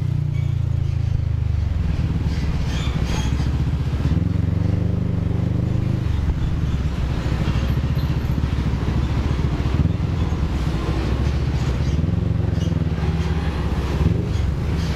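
CFMoto NK400 motorcycle's parallel-twin engine running while riding, its pitch rising and falling a few times as the throttle changes, with a few light knocks.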